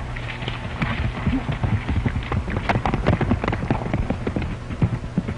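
Hoofbeats of a horse moving at speed, a dense irregular run of sharp hoof strikes, over the steady low hum and hiss of an old film soundtrack.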